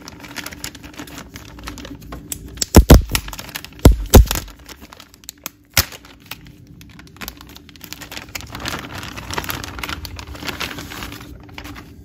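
Cardboard box and packaging being handled and opened by hand, with scattered clicks, rustling and crinkling. Two loud thuds come about three and four seconds in.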